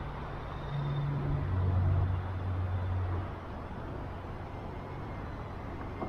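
A motor vehicle passing. Its low rumble swells about a second in and fades again after about three seconds, over a steady background hiss.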